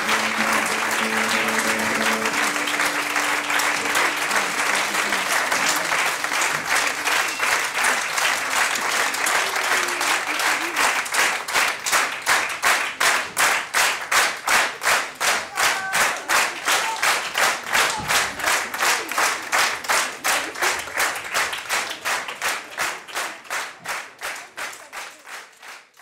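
Audience applauding, with the electric guitar's last held chord dying away in the first couple of seconds. From about ten seconds in, the applause turns into rhythmic clapping in unison, about two claps a second, and it fades out at the end.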